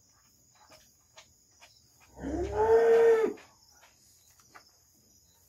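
A single moo from cattle, lasting about a second, with a rising start and a dropping end. Faint insect chirring runs underneath.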